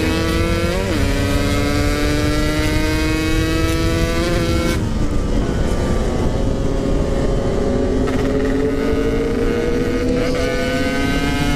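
Yamaha RX-King's air-cooled two-stroke single-cylinder engine pulling under throttle while riding. Its pitch climbs steadily, breaks off sharply about five seconds in as the rider shifts, then climbs again through the next gear, with wind rushing over the microphone.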